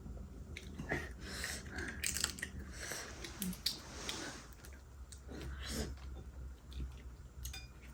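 People chewing and biting seafood-boil food close to the microphone: wet chewing with irregular small clicks and crunches.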